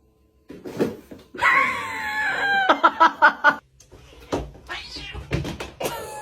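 A cat yowling: a long, wavering cry about a second and a half in that breaks into a quick run of shorter cries, with fainter cries later.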